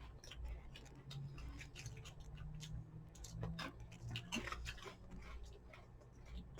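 Faint crunching and crackling of potato chips being chewed, in irregular sharp crackles over a low steady hum.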